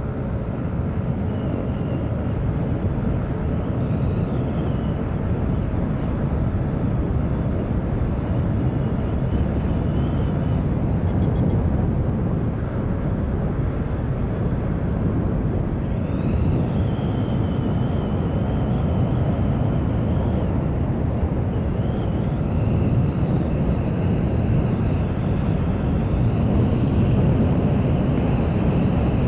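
Yamaha NMAX 155 scooter (single-cylinder, four-stroke, CVT) at full throttle on a top-speed run toward about 112 km/h. The engine's drone is mixed with heavy wind rush on the microphone, and a faint high whine rises now and then.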